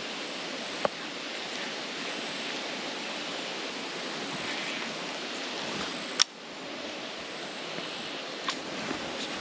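Baitcaster reel winding in a lure, a steady whirring hiss, with a sharp click about a second in and another about six seconds in.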